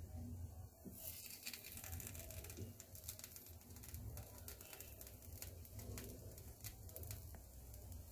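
Faint soft taps and scrapes of a wooden spatula and fingers pressing filling onto bun halves on a non-stick tawa, over a low steady hum.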